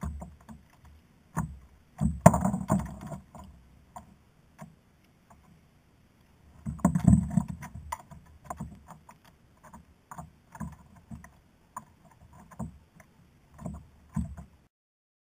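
Clicks, knocks and rubbing from handling on a fishing kayak as a fish is landed and unhooked, with two louder stretches of rushing noise about two and seven seconds in.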